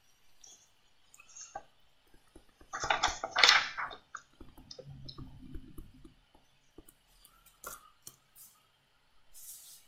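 Scattered clicks and taps of a stylus on a laptop touchscreen as handwriting is entered, with a louder clatter about three seconds in and a short hiss near the end.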